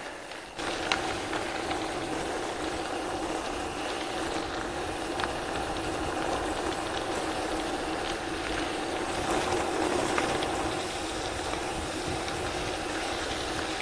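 Bicycle being ridden: steady rolling noise of the tyres with wind over the microphone, carrying a steady low hum, starting about half a second in.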